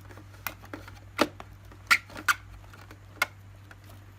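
Sharp plastic clicks and knocks, five in all spread over about three seconds, as the Dyson AM06 fan's loop amplifier is worked onto its base; one of them is the click that tells it has locked in place.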